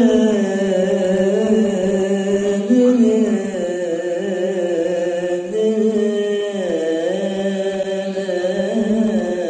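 A man's solo Qur'anic recitation (tilawah) in melodic maqam style: one long, held and ornamented sung phrase with a wavering pitch. The pitch dips briefly about two-thirds of the way through.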